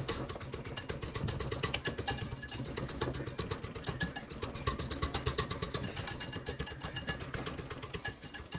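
Electric blender running steadily, motor with a rapid rattling pulse, blending vegetables smooth.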